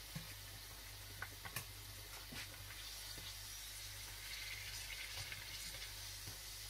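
Hot oil sizzling quietly around potato-coated eggs deep-frying in a pan, the hiss growing a little stronger in the second half. A few light clicks of the metal slotted turner against the pan come in the first couple of seconds.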